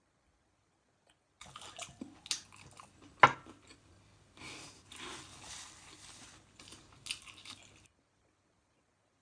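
Close-up chewing and biting of crunchy fried food, crackly bites and chews with one sharp loud click about three seconds in. The sound cuts in abruptly after a second and a half and cuts off just as suddenly near the end, with a low hum under it.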